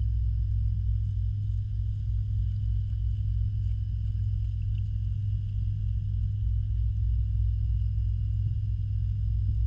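Steady low hum and rumble of the pond's water and filter pump heard underwater, with a faint steady high whine above it.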